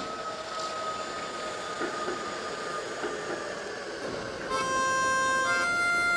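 Steady rumbling noise with a faint thin whine, then about four and a half seconds in a harmonica starts up, louder, playing long held chords that change once.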